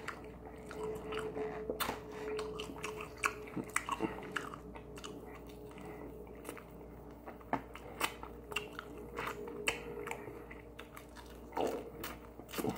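Close-up biting and chewing of Korean fried chicken wings as the meat is pulled off the bone, with irregular sharp clicks and crunches. A faint steady hum runs underneath.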